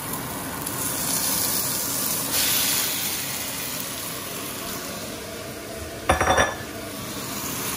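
Marinated chicken pieces poured into a hot stainless steel pan of sautéed garlic, onion and hotdog, sizzling as they hit the oil, the sizzle swelling about a second in. A little after six seconds, a short clatter of knocks as the emptied ceramic bowl is set down on the stone countertop, the loudest sound.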